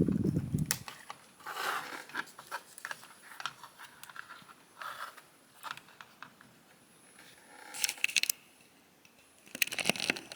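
Snap-fit plastic parts of a model kit being pulled apart and pressed together: scattered clicks, scrapes and rustling in short bursts, with a dull low bump at the very start.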